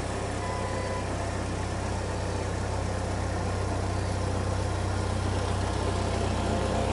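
A Jeep Wrangler's engine idling steadily with a low hum as the Jeep rolls slowly backward.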